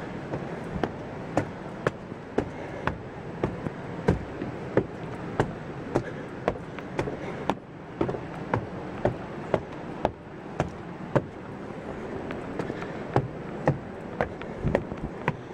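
Footsteps coming down a stairway, one sharp step about twice a second in a steady walking rhythm, over a steady rushing noise underneath.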